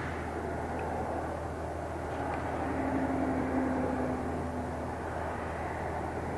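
Garbage truck's diesel engine running steadily at the kerb over road noise, with a steady tone for about two seconds in the middle as the sound briefly gets louder.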